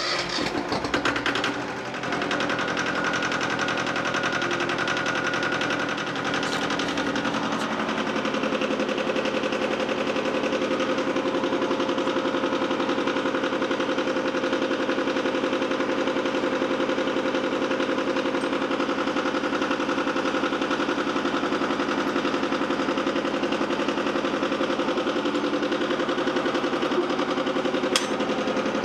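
Yanmar 155D tractor's diesel engine running after start-up, unsteady for the first couple of seconds and then settling into a steady, rapid, even clatter. A single sharp click near the end.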